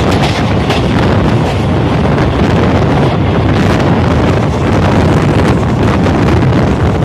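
Heavy wind buffeting the microphone over the steady running rumble of a moving Indian Railways express passenger coach, heard from its open doorway.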